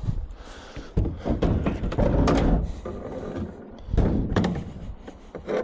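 Knocks and clunks of scrap metal being handled, with a scraping rustle about two seconds in and a pair of knocks near the four-second mark.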